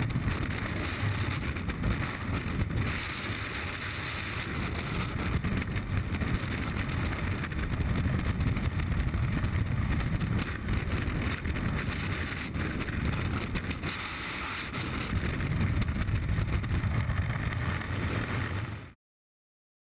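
Freefall wind rushing over a skydiver's body-worn camera microphone: a steady, heavy buffeting of air that cuts off abruptly near the end.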